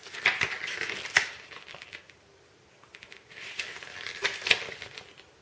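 Pages of a paper instruction booklet being turned by hand: two bouts of rustling, each with a sharp paper snap, the second starting about three seconds in.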